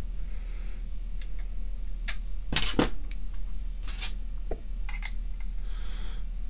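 Metal antenna connectors and adapters clicking and scraping as they are twisted on and off an SWR meter while one antenna is swapped for another. There are a handful of short, sharp clicks, the loudest a little under three seconds in, over a steady low hum.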